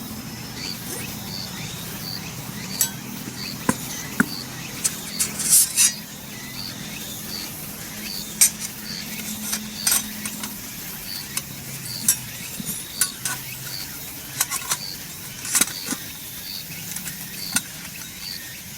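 Metal parts of a flat-pack fire pit clinking and knocking against each other as it is fitted together, in irregular sharp clicks.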